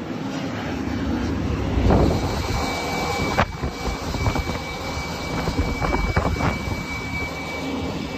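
Steady jet aircraft noise on an airport ramp: a broad rush with a constant high whine, and a few brief bumps.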